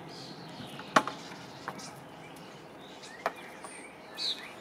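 Two sharp knocks about two seconds apart, with a fainter one between them, over quiet outdoor background; a short falling bird chirp near the end.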